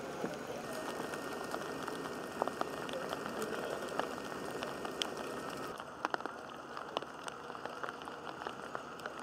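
Light rain pattering, with scattered drip taps over a steady hiss; the hiss drops a little about six seconds in.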